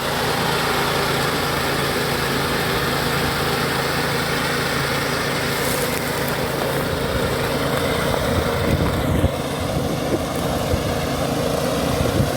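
Small engine of a ride-on crop reaper running steadily, with a few short knocks about nine and twelve seconds in.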